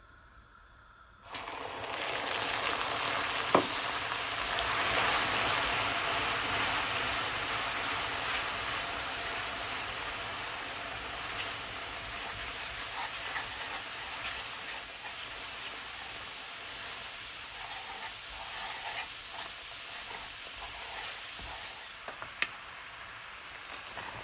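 Hot water hitting melted caramelised sugar in a pan: a sudden loud sizzle about a second in, which slowly dies down as the syrup boils and is stirred with a wooden spoon.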